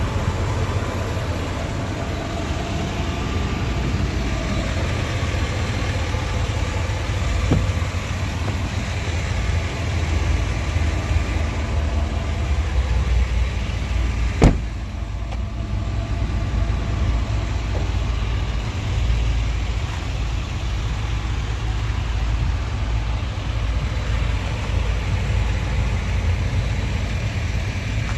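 Steady motor-vehicle engine noise with a low rumble, and one sharp click about halfway through.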